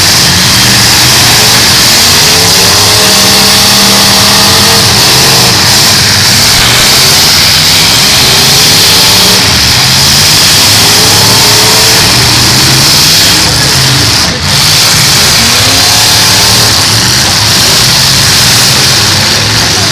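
Several full-size demolition derby cars' engines revving hard together, their pitches rising and falling over one another at a very loud, steady level.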